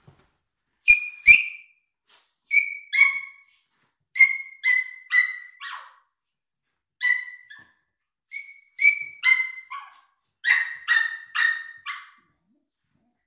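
A dog giving short, high-pitched whines or yips, about eighteen of them in quick runs of two to four, with brief pauses between the runs.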